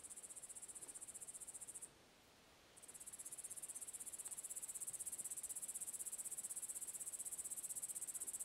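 High-pitched insect chirring, a fast, even pulsing that stops for about a second around two seconds in and then starts again.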